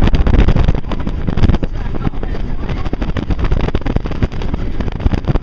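Wind rushing and buffeting over the microphone while the Hollywood Rip Ride Rockit roller coaster train rumbles and rattles along the track at speed.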